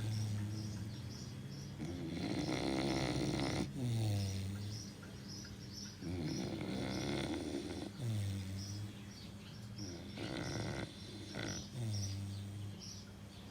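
Chow Chow dog snoring in its sleep: a slow cycle of rasping in-breaths and low droning out-breaths, about one breath every four seconds.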